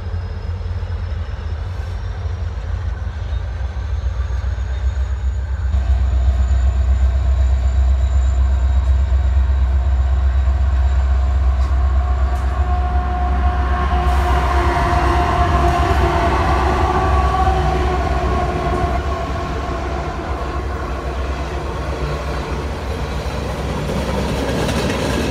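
Norfolk Southern freight train passing close by: the deep rumble of its diesel locomotives swells about a quarter of the way in, then the long train of coal hopper cars rolls past on the rails. For several seconds past the middle a sustained multi-tone whine rides over the rumble.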